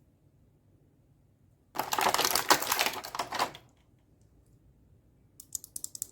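Small plastic pieces of a toy makeup set handled: a dense run of rapid clicking and rattling lasting nearly two seconds, then a few quick clicks near the end.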